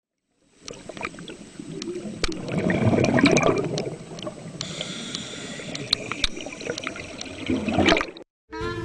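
Underwater bubbling and gurgling with many small pops, swelling about three seconds in and again near the end, then cutting off suddenly.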